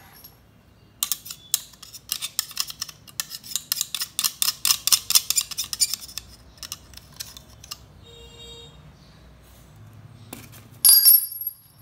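Rapid sharp metallic clicks and scrapes, many a second for several seconds, as a twist drill bit's tip is tapped and dragged on a steel drawer slide among metal chips. Near the end comes a brief, loud, high-pitched sound.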